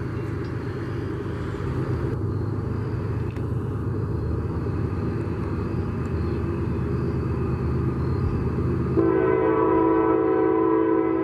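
CSX diesel freight locomotive running as a coal train approaches, then sounding its air horn about nine seconds in: one blast held for about two seconds.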